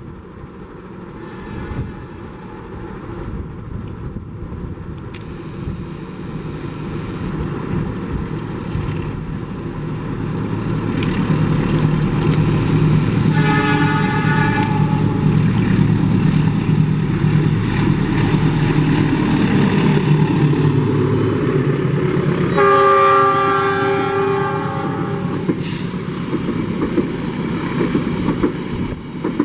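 A diesel-hauled passenger train approaching and running through the station, its locomotive engine drone growing louder. The horn sounds twice: a short blast about 13 seconds in and a longer one about 23 seconds in. Wheels clatter on the rail joints as the cars pass.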